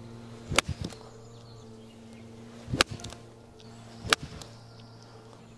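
Golf club striking balls off the tee, three sharp cracks spaced unevenly over a few seconds, with steady background music underneath.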